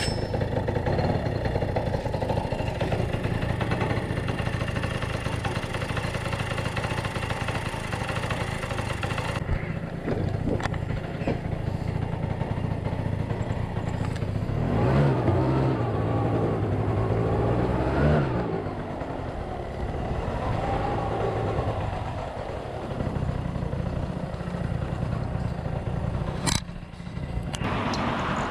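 Suzuki Address V100 scooter's 100 cc two-stroke engine running on a newly fitted replacement pulley set, revving up twice around the middle. There is a sharp click near the end.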